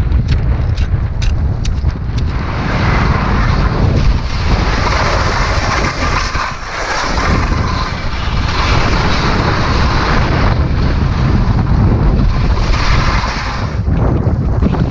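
Strong wind buffeting the camera microphone: a heavy, constant rumble with a rushing hiss over it from about two seconds in. A few sharp clicks sound in the first couple of seconds.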